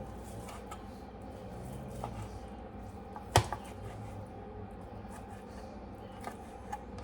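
Steady low hum with one sharp knock about three and a half seconds in, followed at once by a lighter tap, and a couple of faint clicks near the end: hard objects knocking during kitchen work.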